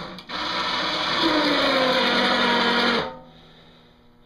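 A 2,000-pound electric winch running, winding its cable to move the 48-inch Craftsman plow blade. Its steady motor whine slides down in pitch, then stops about three seconds in.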